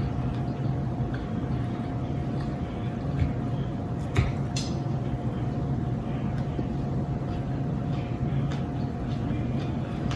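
A steady low hum with a few light clicks of cutlery on a plate, the sharpest about four seconds in.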